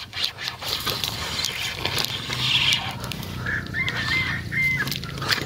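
Rod and reel handling while a hooked snakehead is played: clicks and rustling of the reel and gear throughout, with a short high bird call about four seconds in.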